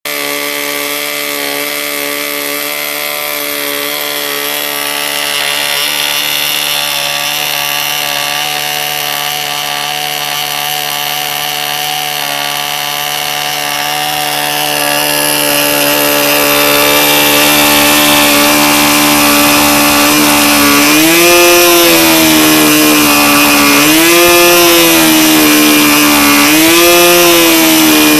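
Evolution .36 two-stroke glow model-aircraft engine running steadily on the ground while being broken in. Near the end its speed rises briefly and drops back three times.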